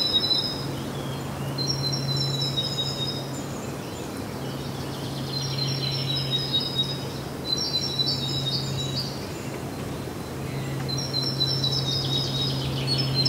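Birds chirping in short high phrases, a burst every couple of seconds, over a steady background hiss. A low steady hum drops out briefly twice.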